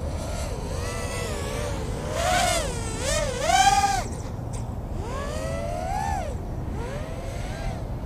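LitisRC Cicada 180 4-inch racing quadcopter in flight: its brushless motors and propellers whine, the pitch rising and falling with each throttle change, loudest in a high climbing whine about three and a half seconds in.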